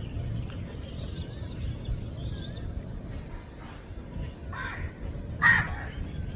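A crow cawing twice near the end, about a second apart, the second caw louder, over faint chirping of small birds and a steady low background rumble.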